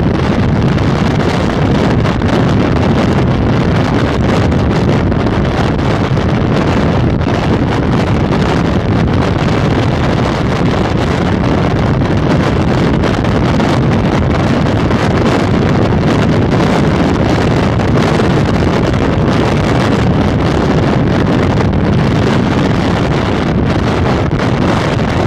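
Steady, loud wind rush on the microphone of a motorcycle cruising at motorway speed, with a low rumble of road and engine underneath.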